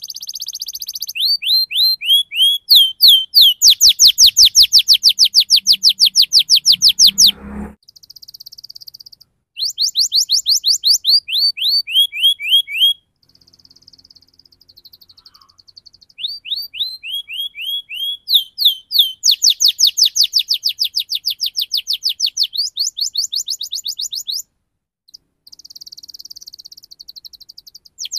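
Domestic canary singing a fast rolling song: rapid runs of repeated high notes and quick downward-sweeping trills, in phrases of several seconds broken by short pauses and softer buzzy notes.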